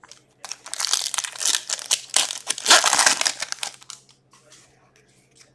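Foil wrapper of an Upper Deck hockey card pack crinkling and tearing as it is ripped open by hand. The dense crackle lasts about three and a half seconds and dies away about four seconds in.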